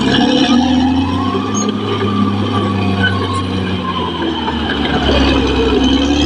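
Caterpillar D6R XL bulldozer's diesel engine running under load, its pitch rising and falling several times as it works.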